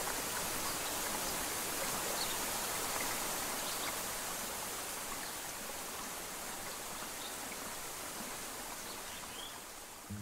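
Steady rushing of flowing river water, slowly fading toward the end.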